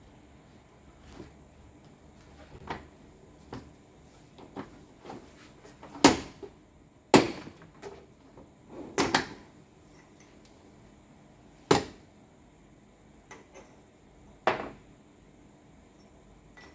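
Tools and metal parts being handled on a workbench: scattered knocks and clinks, with five louder knocks spread through the middle.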